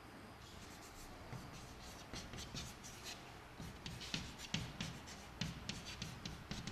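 Chalk writing on a chalkboard: short scratches and taps of the chalk, a few at first, then many close together in the second half as numbers and commas are written.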